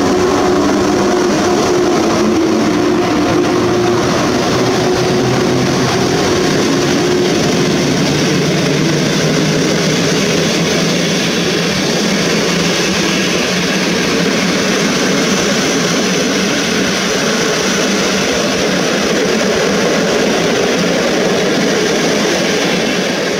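Loco-hauled passenger train carriages rolling past on the rails behind an EP07 electric locomotive: a steady, loud rumble of wheels on track. A humming tone fades out about eight seconds in as the locomotive draws away.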